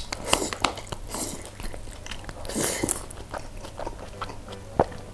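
Close-miked eating of spicy noodles from a glass bowl: slurping and chewing, with a utensil clicking against the glass. Two louder slurps come about a third of a second in and near three seconds, and there is one sharp tap near the end.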